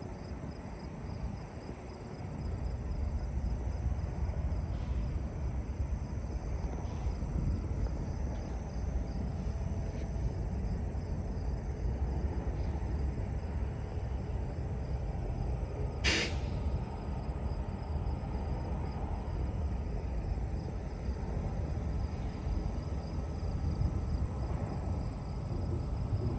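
Crickets chirping in a steady high trill over a deep, continuous rumble that swells about two seconds in; a single sharp click about sixteen seconds in.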